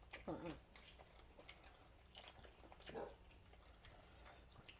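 Quiet chewing and mouth sounds of someone eating, with faint scattered clicks. Two brief falling voice-like sounds, one just after the start and one about three seconds in.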